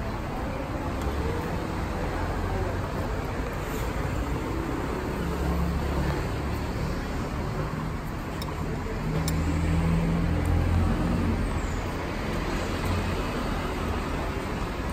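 Road traffic: a steady rumble of passing vehicles, swelling twice as engines go by, about five seconds in and again around ten seconds.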